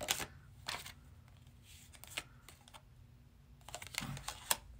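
Tarot cards being handled, giving scattered light clicks and snaps, with a quick cluster of them near the end.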